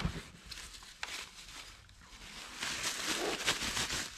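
Bubble wrap and packing paper rustling and crinkling as a part is unwrapped and lifted out of a shipping box. It is faint at first, with a single click about a second in, and the crackly rustling grows louder after about two and a half seconds.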